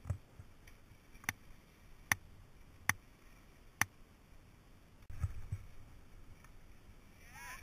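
Skiing on snow: a faint hiss with four sharp clicks about a second apart, then a sudden low thump about five seconds in.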